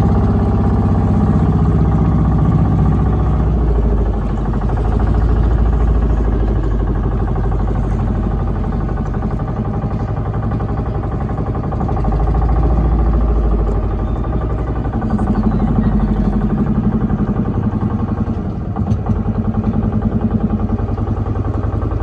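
Motorboat engine running steadily, loud and close, with its pitch shifting a few times.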